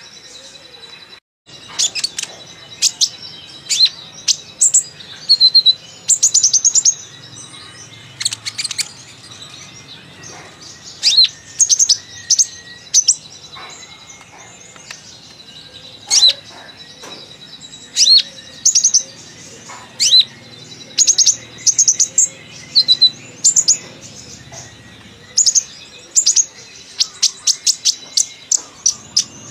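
Purple-throated sunbird (kolibri ninja) singing a chatty song of sharp, high chirps and quick twittering runs in clusters with short gaps, its song mixing in learned 'isian' phrases.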